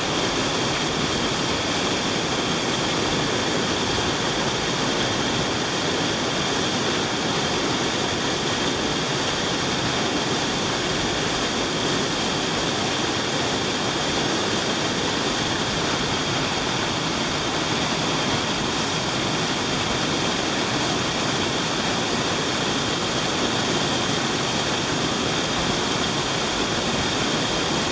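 Waterfall pouring over rock close by, a steady rushing noise of falling water.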